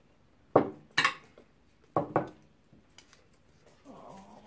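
Metal spoon clinking and scraping against a glass serving platter, in four sharp clinks: one about half a second in, one a second in, and two close together about two seconds in.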